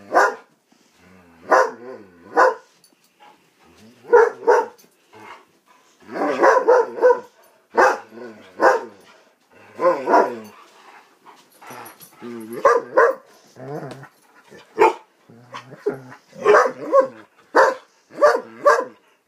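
Dogs barking in short, repeated barks, often two or three in quick succession with brief pauses between.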